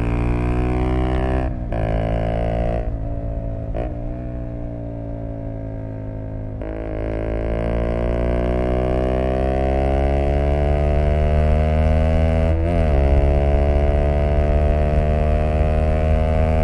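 Zontes U125's engine through an aftermarket BlackWidow exhaust, heard while riding. The engine note dips briefly a few times near the start as the throttle is rolled off and on, then climbs slowly and steadily in pitch under acceleration, with one quick dip past the middle.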